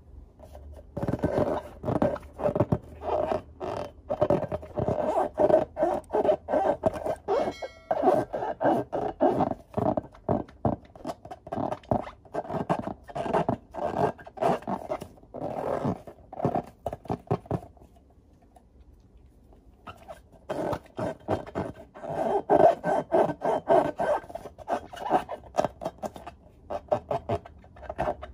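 Hands rubbing and squeezing filled latex balloons in quick repeated strokes, a dense scraping, rubbing sound. It pauses for about two seconds about two-thirds of the way through, then resumes.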